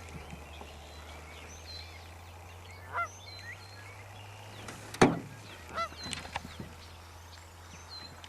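Birds calling: a few short honking calls and some small high chirps over a steady low hum. A single sharp knock, the loudest sound, comes about five seconds in.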